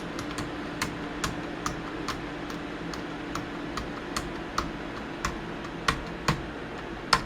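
A computer keyboard's Delete key tapped over and over, about two to three presses a second, to get into the BIOS during boot. A steady low hum runs underneath.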